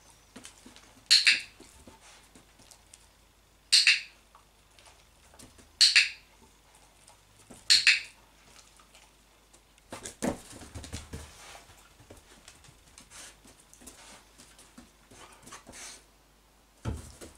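A hand-held training clicker clicked four times, about two seconds apart, each click sharp and high-pitched. It marks the dog's correct behaviour. Softer knocks and shuffling follow, then a thump near the end.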